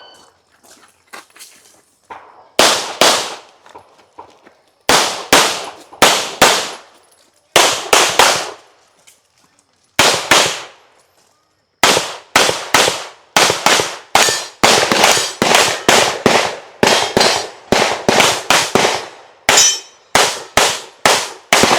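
Rapid pistol gunfire in quick strings of two to four shots with short pauses between, each shot echoing briefly. The strings come faster and almost without a break in the second half. This is the pace of a USPSA stage being shot.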